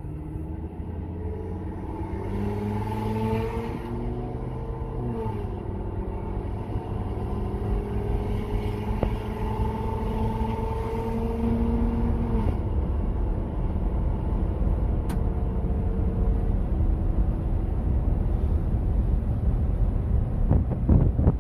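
Ford F-350's 6.8-litre V10 running without catalytic converters, heard from inside the cab with the windows down as the truck pulls away. The exhaust note climbs in pitch, drops at an upshift about five seconds in, climbs again and drops at a second upshift about twelve seconds in, then holds at a steady cruise under growing road and wind noise.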